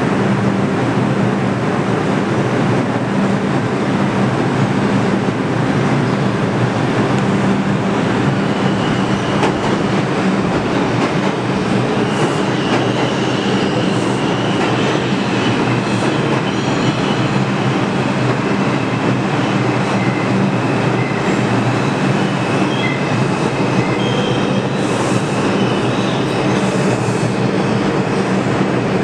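New York City subway train pulling into an underground station: a loud, steady rumble of wheels and motors with clatter over the rail joints. A thin, high wheel squeal joins in about halfway through as the train slows along the platform.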